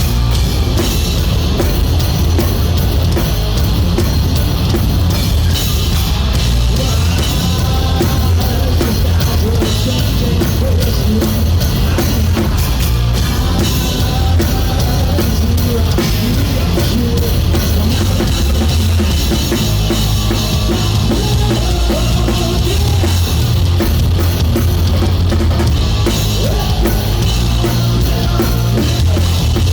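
Live rock band playing loud and steady, the drum kit prominent over electric guitars and bass.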